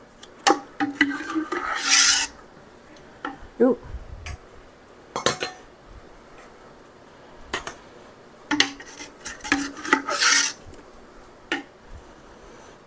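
Metal ladle scraping and clinking against a stainless steel stockpot while apple pie filling is scooped out. There are two longer rasping scrapes, one near the start and one late on, with a few sharp clinks of utensils on the pot and jar in between.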